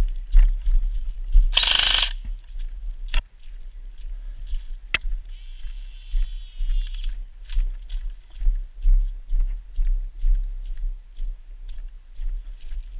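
Footsteps and jostling gear on a body-worn camera while a player moves over muddy ground, with irregular low thumps throughout. A loud, harsh burst of noise lasts about half a second near two seconds in, a sharp click comes about five seconds in, and a high whine follows for about two seconds.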